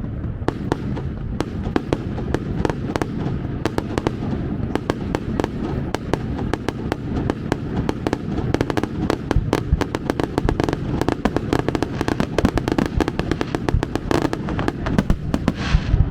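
Aerial fireworks display: a steady low rumble of booms under rapid crackling pops, the crackle growing thicker through the second half.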